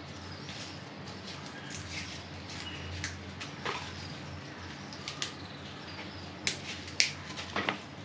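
Cowpea (kunde) leaves being plucked and snapped off their stems by hand: irregular small snaps, sharper ones near the end, over a faint steady hum.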